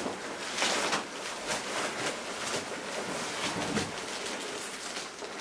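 Rustling and crinkling of a tactical medic's kit bags and plastic-wrapped supplies being handled, with a few louder rustles.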